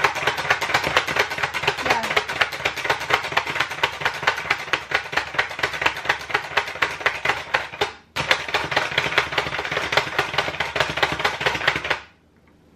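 Garlic cloves being minced in a hand-operated garlic chopping gadget: a rapid, steady chopping clatter of about five strokes a second, with a brief pause about eight seconds in, stopping just before the end.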